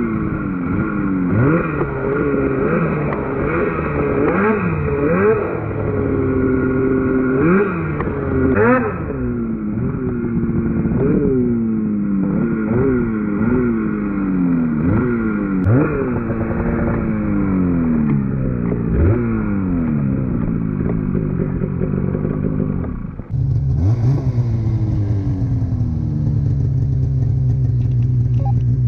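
Snowmobile engine revving up and down over and over, its pitch rising and falling sharply every second or two. A little past twenty seconds in it dips briefly, then settles into steady, even running at a lower pitch.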